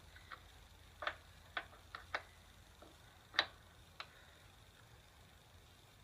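Wrenches clicking and clinking on a motorcycle's chain adjuster bolt and lock nut as the lock nut is loosened: about eight sharp, irregular clicks in the first four seconds.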